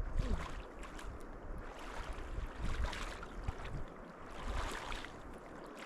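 Water splashing in bursts every second or two as a person bathes in a cold river, with a low wind rumble on the microphone.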